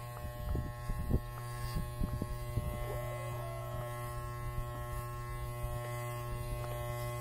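Corded electric pet clippers running with a steady buzz as they shave matted fur off a long-haired cat, with a few light knocks in the first second or so.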